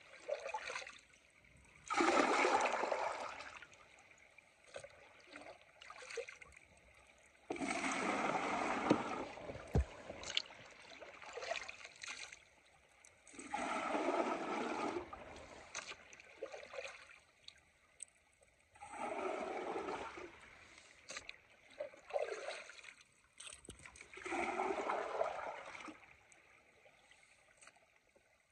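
Water sloshing and splashing as a plastic bucket is dipped into a shallow creek and rinsed out. It comes in five bursts a few seconds apart, with the faint running of the creek between them.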